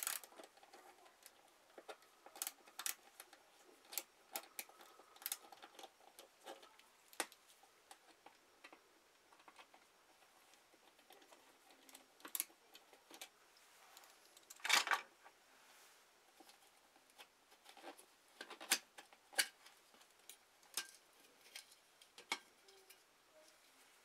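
Faint, scattered clicks and taps of a screwdriver turning out the screws of a metal pull-chain ceiling light fixture base, with one louder half-second scrape near the middle.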